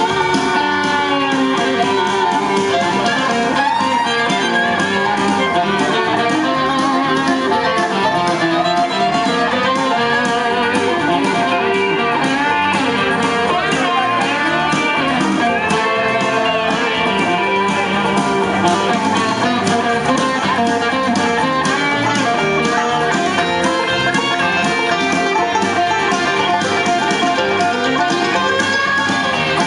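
Instrumental break in a country song: a Telecaster-style electric guitar playing lead lines over full backing accompaniment, continuous and loud.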